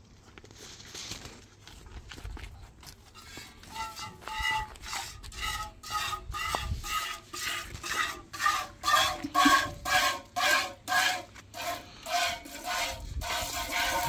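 Jets of milk squirted by hand from a cow's teats hitting an enamel bucket, each squirt ringing the metal. The squirts come about twice a second, start a few seconds in and grow louder.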